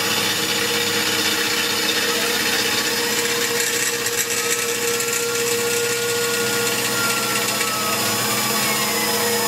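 Tormach PCNC 1100 CNC mill with its spindle running steadily and compressed air hissing onto the end mill for cooling, as the cutter works along the spiral grease-groove path in a steel fork-link post. A faint tone slowly rises and falls through the middle.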